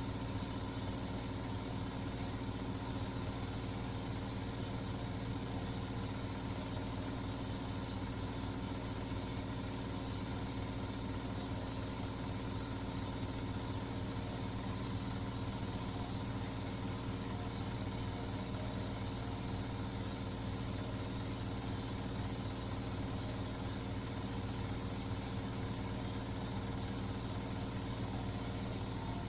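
Beko washing machine spinning at high speed, its drum motor running with a steady, even hum made of several constant tones.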